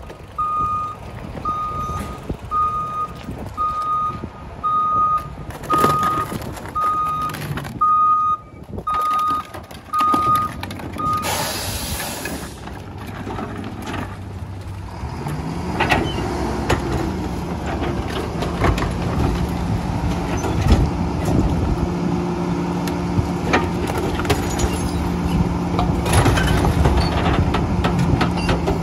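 Split-body rear-loading garbage truck's reversing alarm beeping about once a second, stopping about eleven seconds in, followed by a short hiss of its air brakes. The engine then revs up and holds a raised steady note while the hydraulic cart tippers lift and dump wheeled bins into the hopper, with clanks of the carts against the rear of the truck.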